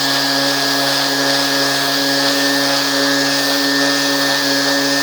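Electric sander running steadily, sanding a glued wooden plug flush with the surface of a cedar board. It gives a constant motor hum over a sanding hiss.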